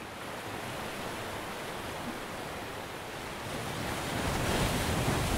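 Sea surf: waves breaking and washing over a shallow rocky reef, a steady rush that swells louder about four seconds in.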